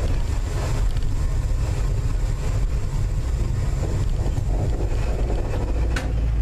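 Low, steady rumble inside North Shore Line 749, an electric interurban car, as it rolls slowly along the track and comes to a stop, with a single sharp click near the end.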